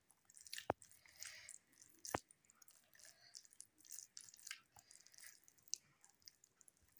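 Fingers squishing and mixing very soft, mushy rice and mashed potato on a ceramic plate: faint, wet, crackly smacking with two sharper clicks in the first couple of seconds.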